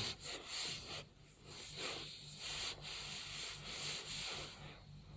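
Close-up rubbing, a series of friction strokes about every half second, fading a little near the end.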